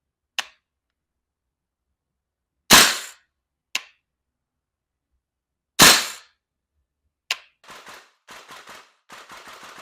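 VFC KAC M110K1 gas blowback airsoft rifle firing two single shots about three seconds apart. Each is a sharp report from the gas blowback bolt cycling, with lighter clicks between them. A series of fainter rustling noises follows near the end.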